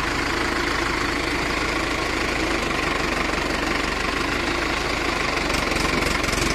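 Mahindra Arjun Ultra-1 555 DI tractor's diesel engine idling steadily.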